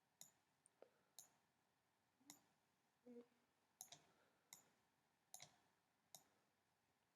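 Faint computer mouse clicks, about eight of them at irregular intervals, with a brief low tone about three seconds in.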